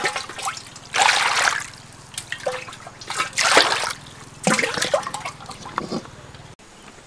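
Water and raw shelled peanuts sloshing in a wok as it is swirled to wash them, in several separate swishes about a second apart.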